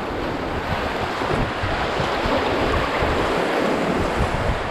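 Whitewater rapids rushing steadily, with wind buffeting the microphone in a choppy low rumble.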